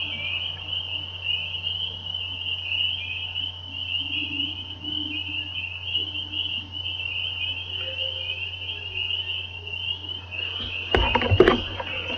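Dense mating chorus of frogs, a continuous high-pitched trilling over a steady low hum. About eleven seconds in, a brief burst of knocks and rustling, the loudest sound here.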